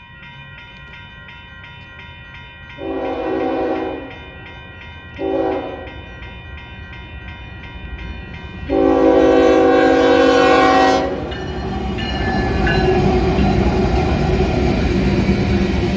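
Union Pacific ES44AC locomotive's Nathan K5HL five-chime air horn sounding three blasts for a grade crossing: long, short, then a longer one, over a crossing bell ringing steadily. From about 11 seconds in the locomotives and freight cars pass close by with a loud, steady rumble and clatter of wheels.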